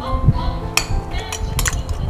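Metal spoons and forks clinking against plates several times over background music.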